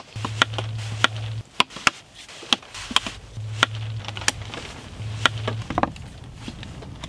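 Irregular sharp clicks and knocks of a knife and split-wood slats being handled while the slats are lashed together, about one or two a second, over a low steady hum that comes and goes.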